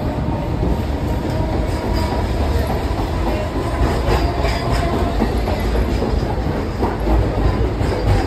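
Inside a moving local passenger train carriage: the steady loud rumble and rattle of the coach running on the rails.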